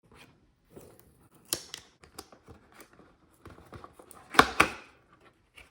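Merchandise packaging being opened by hand: paper and plastic rustling and crackling, with two loud sharp crackles close together about four and a half seconds in.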